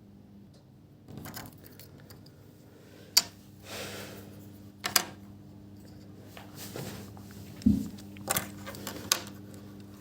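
Small hard parts being handled while working on an iMac's RAM: scattered sharp clicks and light knocks, about five loud ones, between softer rustling, over a faint steady low hum.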